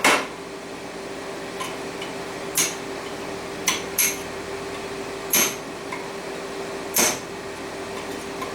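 Hammer striking a punch to pack stainless steel pieces tightly into a forge-welding canister: about six sharp metallic taps, irregularly spaced a second or so apart.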